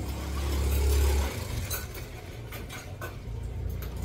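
A low rumble, loudest for about the first second, with scattered light clinks of dishes and cutlery on the table.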